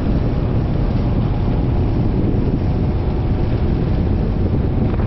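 Motorcycle on the move at road speed: a steady rush of engine, road and wind noise, with wind blowing over the microphone.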